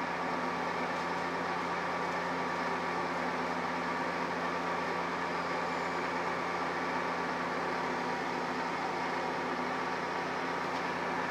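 CNC milling machine running steadily, its spindle turning a long twist drill that feeds into a solid acrylic rod. It makes an even hum with several steady tones and does not change as the drill starts cutting and plastic chips spiral out.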